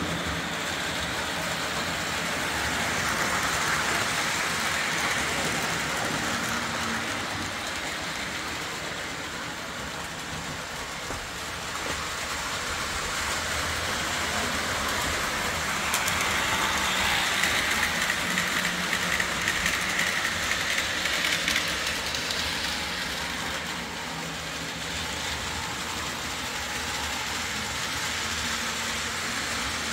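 Lionel O-27 Alco diesel model train running on three-rail track: a steady motor hum with wheel clatter, growing louder and softer as the train comes around, loudest about halfway through.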